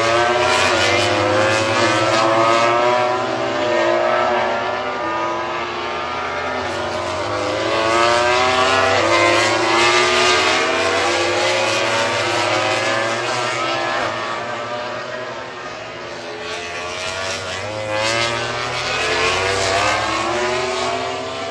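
MotoGP racing motorcycles' engines revving hard as they accelerate through the gears, the pitch climbing and dropping back with each upshift, over and over. It fades a little near the middle and swells again towards the end as the next bike comes through.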